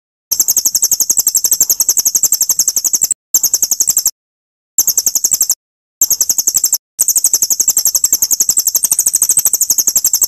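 Recorded songbird trill used as masteran for training murai batu: a rapid, high-pitched run of about ten notes a second, in long bursts broken by short silent gaps where the loop is cut.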